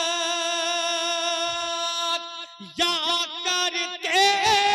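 Male naat reciter singing: he holds one long steady note for about two seconds and breaks off. Then, from near the middle, he sings a wavering, ornamented melodic run without clear words.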